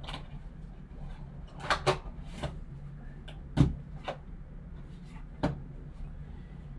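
Cardboard trading-card box and a plastic-cased card being handled by gloved hands: a handful of short knocks and scrapes of cardboard and plastic, the loudest about three and a half seconds in.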